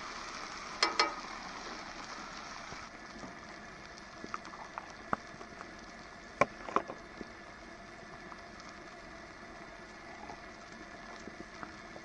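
Steady hiss of a pot cooking on a camp stove, with butter in it for eggs, dropping in level about three seconds in. Scattered clicks and knocks of a utensil against the pot, a double one about a second in and the loudest about six and a half seconds in.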